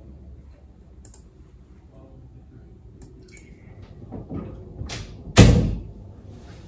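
Quiet room tone, then a few light knocks and one loud, sudden thump about five seconds in.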